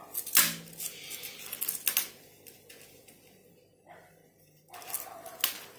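Scattered light clicks and taps of a metal tape measure and marker pen against a PVC pipe while hole positions are marked out, with a quieter stretch in the middle.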